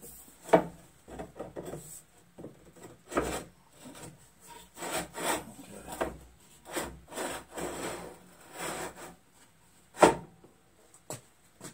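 Scraping, rubbing and knocking as the sander table's 3/4-inch pipe mount is slid in and out of its 1-inch pipe socket, with one sharp knock about ten seconds in.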